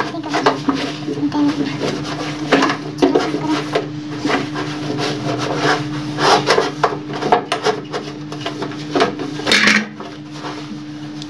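Cloth rubbing and wiping on a stainless-steel gas stove top, with irregular clinks and knocks of the metal pan supports being handled. A steady low hum runs underneath.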